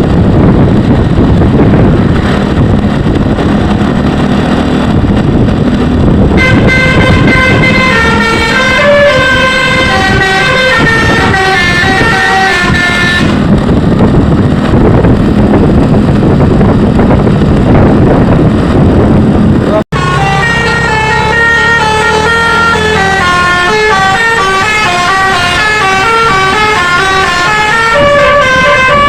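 A bus's telolet basuri multi-tone air horn plays a stepping melody over a loud engine rumble. The tune plays in two stretches, starting about six seconds in and again about twenty seconds in, with only the rumble between them.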